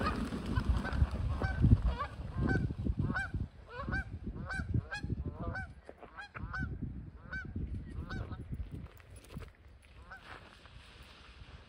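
A flock of geese honking, short calls one after another, several a second, thinning out and fading near the end.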